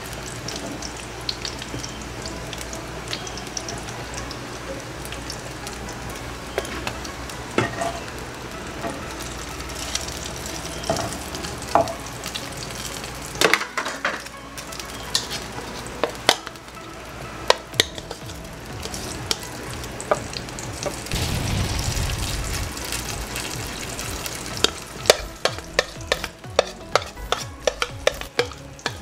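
Chicken and carrot patties frying in oil in a nonstick pan, sizzling steadily with scattered sharp pops and clicks. The pops come thick and fast near the end, and there is a brief low rumble about two-thirds of the way through.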